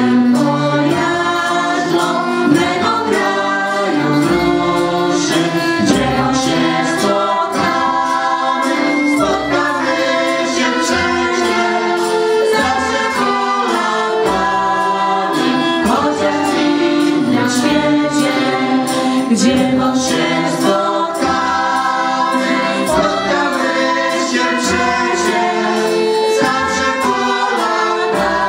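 Polish folk song sung by a group of female voices, accompanied by two accordions and a trumpet, with a steady beat.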